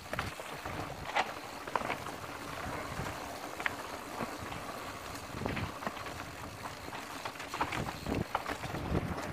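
Mountain bike riding fast down a rough dirt trail, heard from a camera mounted on the bike: a steady rush of tyre and riding noise with frequent knocks and rattles as the bike hits bumps.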